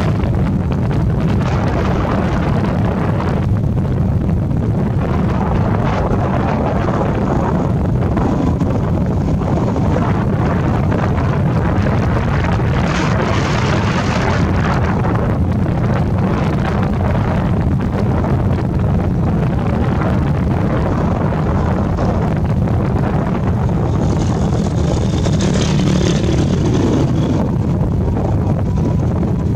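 Wind buffeting the microphone of a camera on a moving motorbike, mixed with the bike's running and road noise. A hissier rush swells briefly about halfway through and again near the end.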